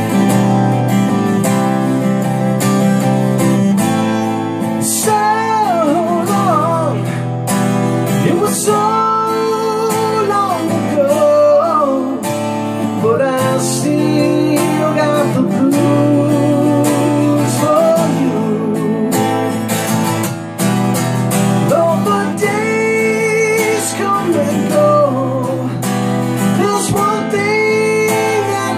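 Guitar solo on a 12-string double-neck acoustic-electric guitar: a lead melody with string bends and vibrato over sustained chords.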